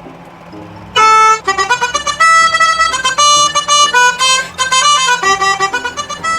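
Multi-tone 'telolet' bus horn playing a quick reedy melody of changing notes, sometimes several at once, starting about a second in.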